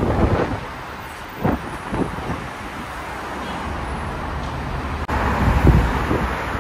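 Road traffic passing, a steady low rumble with wind buffeting the microphone. The sound breaks off abruptly about five seconds in and comes back louder.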